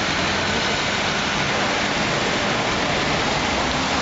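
Rainy city street ambience: a steady hiss of rain and traffic on wet pavement.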